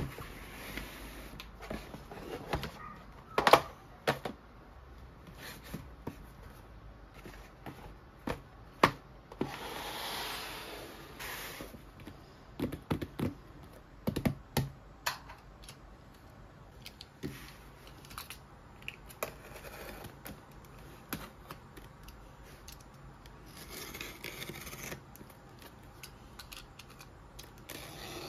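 A cardboard shipping box handled on a desk: knocks and taps as it is set down and touched, with scraping and rubbing against the cardboard. Near the end, a small box cutter scrapes along the packing tape as it slices it open.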